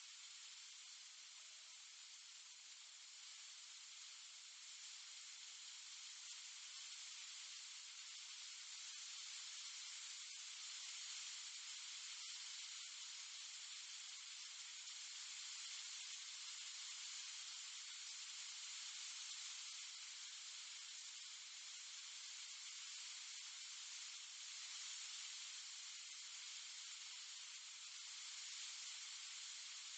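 Faint steady hiss from an outdoor security camera's microphone, with a couple of faint ticks about ten and twelve seconds in.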